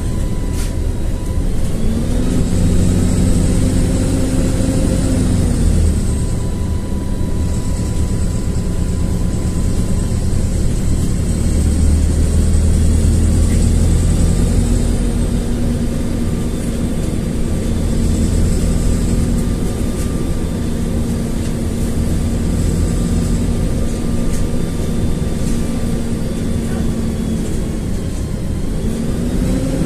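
LiAZ-4292.60 city bus heard from inside while it drives: a steady engine and road drone whose pitch climbs and drops several times as the bus speeds up and slows, with faint high whines coming and going.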